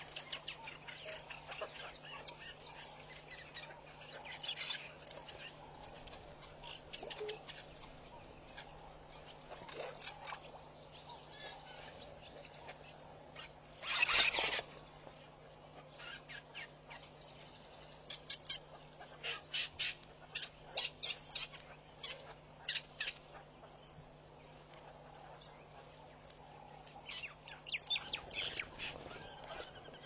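Natural outdoor ambience of insects, cricket-like, chirping in a steady high-pitched pulse, with scattered short bird chirps and clicks. About halfway through there is one brief, louder rushing noise.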